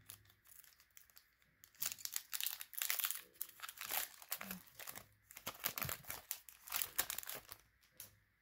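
Foil wrapper of a Pokémon Sword & Shield booster pack crinkling and crackling as it is opened and the cards are pulled out, in a dense run from about two seconds in until shortly before the end.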